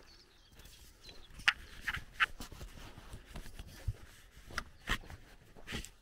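Footsteps on an asphalt lane: a handful of sharp taps and scuffs at uneven intervals, the loudest about a second and a half to two seconds in, with faint birdsong behind.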